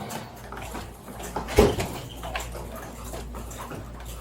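One loud thump about a second and a half in, over a steady low hum and a few faint clicks.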